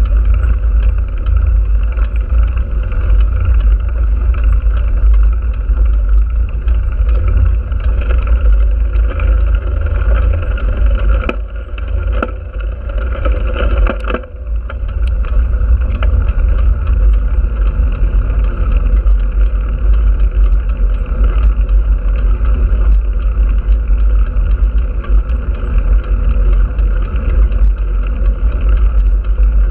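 Steady wind rumble on the microphone of a camera moving along a road, mixed with road noise. It eases off briefly about twelve seconds in.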